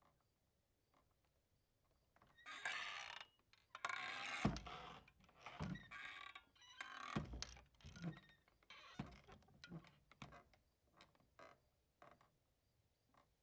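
Saloon-style swinging doors pushed open, their hinges creaking, with a heavy knock about four and a half seconds in. The doors then swing back and forth with creaks and knocks that grow weaker and further apart until they settle.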